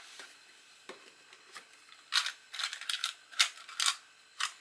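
Small rotary-tool accessories being handled in a foam-lined case: a few light clicks, then from about two seconds in a run of sharp plastic clicks and rattles as the small clear plastic box of metal mandrels is lifted out.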